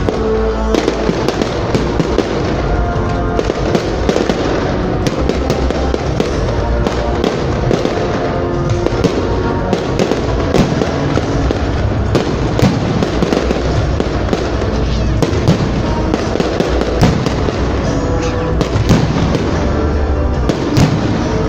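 Fireworks display: shells bursting and crackling in rapid, dense succession, over loud accompanying music from the show's soundtrack.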